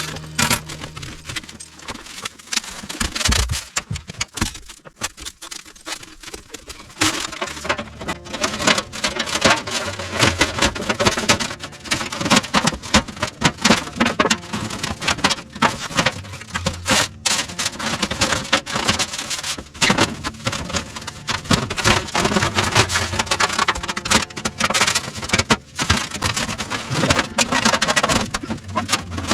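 Irregular clicks, knocks and rubbing from parts of a hot tent stove being handled and fitted together during assembly.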